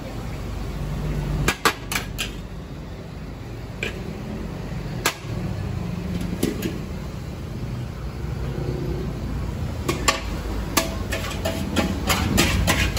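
Sharp metal knocks and clacks of a spatula against a steel wok as fried rice is scooped out and portioned, coming irregularly and bunching up near the end, over a steady low rumble.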